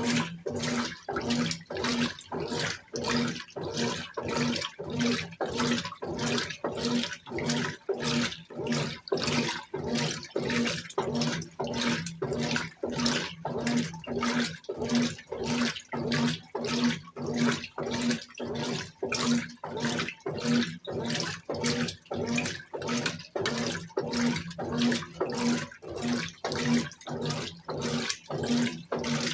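Brastemp BWK17 top-loading washing machine agitating a load in water: the motor hums and the water churns in rhythmic surges about twice a second as the agitator swings back and forth on turbo agitation.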